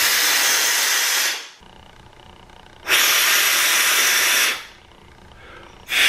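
A man blowing hard through a windshield washer hose by mouth to clear out fragments of a broken washer nozzle: three long rushing blows of air, each about a second and a half, with short pauses between.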